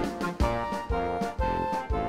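Background music with a steady beat, about two strokes a second, under sustained melody notes.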